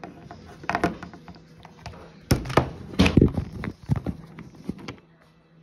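Plastic toy animal figurines knocking and bumping on a wooden tabletop and against the phone, in a few clusters of hard taps. The loudest cluster comes a little past two seconds in.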